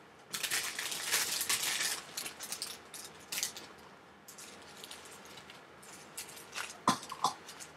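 Small plastic zip bags of diamond-painting drills crinkling and rustling as they are handled, loudest in the first two seconds, then scattered light clicks and taps, with two sharper clicks near the end.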